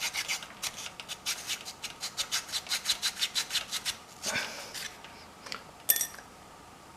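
Sandpaper-faced paddle scraping rapidly back and forth between bicycle disc brake pads, about five strokes a second, sanding the glaze off the pad surfaces. The strokes stop about four seconds in, followed by one longer scrape and a sharp click.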